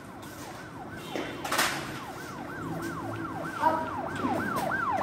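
Police siren in a fast yelp, its pitch sweeping up and down about three times a second and growing louder toward the end. A short sharp noise comes about a second and a half in, and a voice shouts 'Up!' near the end.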